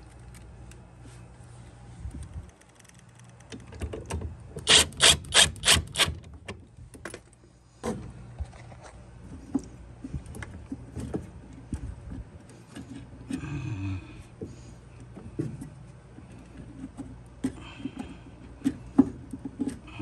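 Hands working on a gas furnace's inducer motor and pressure switch: scattered small clicks and rubs as parts and tubing are handled. About five seconds in comes a quick run of six sharp clicks.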